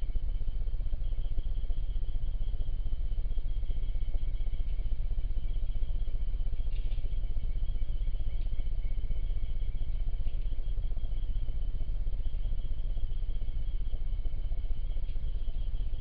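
Night insects calling in a continuous fast-pulsing high chirr, over a steady low rumble that is the loudest part of the sound.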